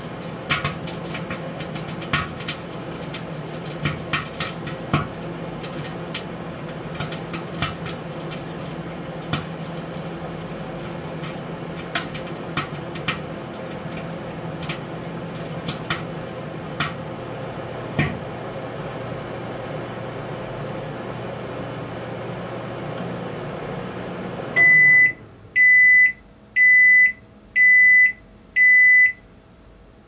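Microwave oven running with a steady hum while salmon roe (ikura) inside bursts in sharp, irregular pops, about fifteen of them over the first two-thirds. Near the end the oven stops and beeps five times, about once a second, signalling the end of the heating cycle.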